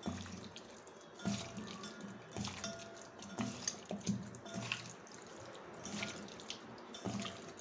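Raw chicken pieces being squished and turned by hand in a mustard-oil marinade in a steel bowl, making irregular wet squelches and soft slaps.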